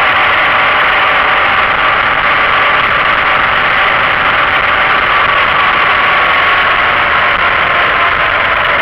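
Motorcycle riding at steady road speed: a loud, constant rush of wind and road noise over the running engine, with a faint engine tone that slowly drifts lower in pitch.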